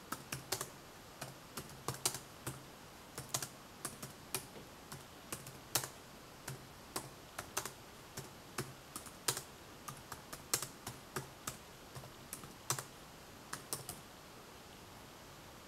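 Typing on a Lenovo IdeaPad 3 laptop keyboard: irregular key clicks, a few a second, stopping about fourteen seconds in.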